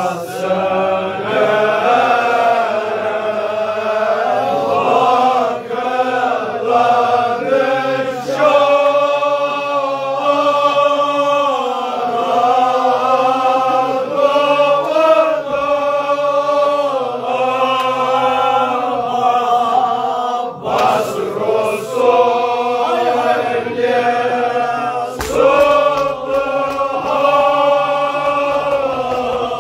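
A group of men chanting a devotional mourning lament together, unaccompanied, their voices rising and falling in long held lines.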